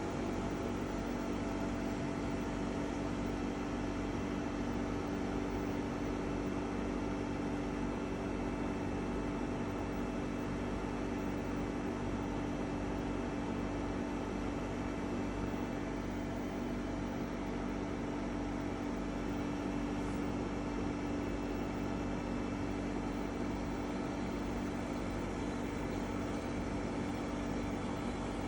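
EcoFlow WAVE portable air conditioner running, making an unpleasant, loud noise: a steady hum with several held tones, the strongest a low one, that does not change.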